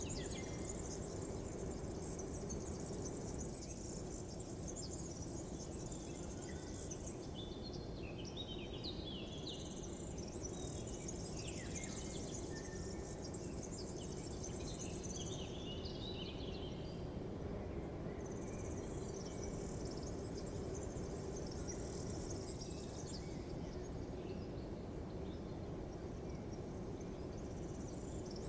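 Outdoor morning ambience: a steady low background rush, with spells of high chirring a few seconds long that come and go, and bird chirps in the middle.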